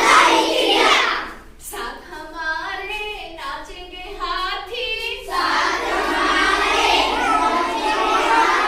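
Children singing a Hindi nursery rhyme in a sing-song chant, several voices together, with a short break between lines.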